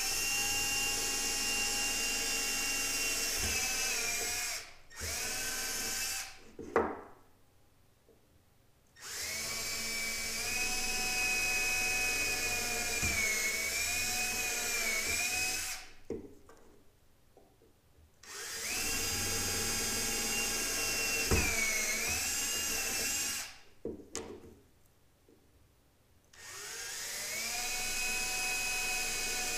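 Cordless drill driving a bit into a small piece of white plastic, running in several bursts of a few seconds with short pauses between them, the motor's whine sagging in pitch at times as the bit bites. A sharp knock about seven seconds in.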